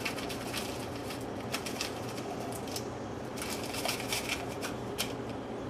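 Crispy French fried onions shaken out of a can into a ceramic casserole dish: light, dry crackling and rattling as the bits tumble out, in several short flurries.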